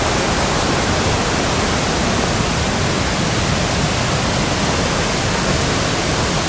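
Rushing water of Begbie Falls and its creek: a loud, steady, even rush with no breaks.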